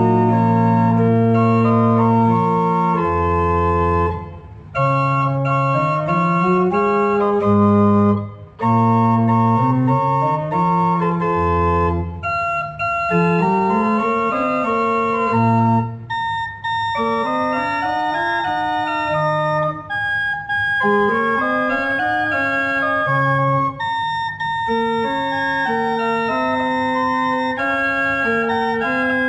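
Church organ playing the prelude that opens a service: slow, held chords with a moving melody and bass line. The music breaks off briefly between phrases about four seconds in and again about eight seconds in.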